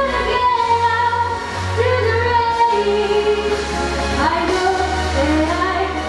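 A 13-year-old girl singing a pop song into a handheld microphone, with sustained, gliding notes, over amplified backing music with a steady bass.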